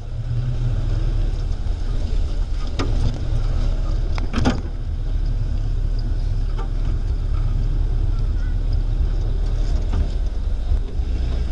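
Off-road vehicle's engine running with a steady low rumble as it drives a rough mountain track, with a couple of sharp knocks from the vehicle about three and four and a half seconds in.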